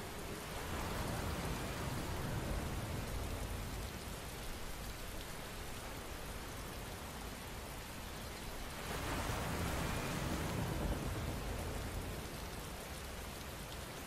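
Steady rain, swelling twice into heavier spells with a low rumble, about a second in and again around nine seconds in.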